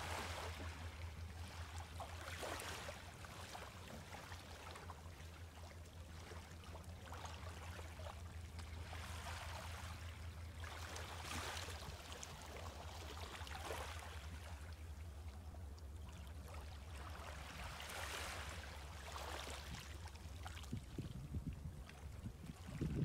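Small, gentle waves lapping and washing up onto a sandy beach from a calm sea, each wash swelling and fading every few seconds. A steady low hum runs underneath.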